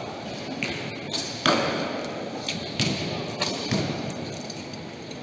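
Bows being shot along an indoor shooting line: a string of sharp snaps and thuds, about seven in five seconds at uneven spacing, each echoing in the large hall, the loudest about one and a half seconds in. Low voices murmur underneath.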